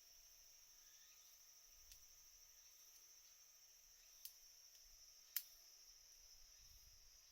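Three short sharp clicks from a Shimano BL-M9020 brake lever being worked, about two, four and five and a half seconds in, the last the loudest, over a faint steady high hiss.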